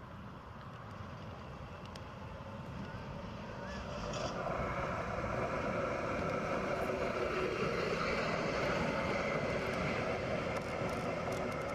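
Tatra KT4D articulated tram running on grassed track as it approaches and passes close by. Wheels on rail and traction equipment grow louder from about four seconds in and stay loud to the end, with a few steady tones running through the noise.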